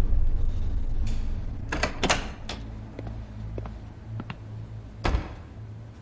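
A door clicking and knocking: a cluster of sharp latch-like clicks about two seconds in, and a single louder knock about five seconds in, over a low steady hum.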